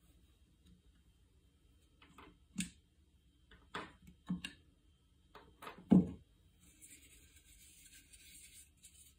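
Small metal parts of a Rotax 377 rewind starter clicking and tapping as circlips and springs are taken off the pulley and set down on a wooden workbench, about eight clicks with the sharpest knock about six seconds in. Then a steady scratchy rubbing as the starter rope slides across the bench.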